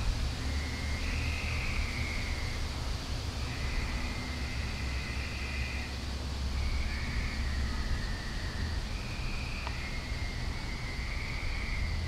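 Night chorus of calling frogs: trill-like calls about a second long at two slightly different pitches, repeating every couple of seconds and overlapping, over a steady low rumble.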